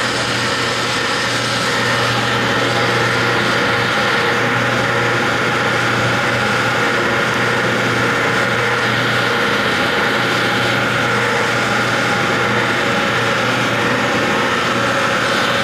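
FPEC vacuum paddle blender running on a test run: its electric drive motors and gear reducers give a steady machine hum with a high whine.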